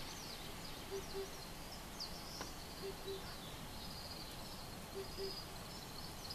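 Oriental cuckoo giving its low double hoot, po-po, three times about two seconds apart. Other small birds twitter faintly and high in the background.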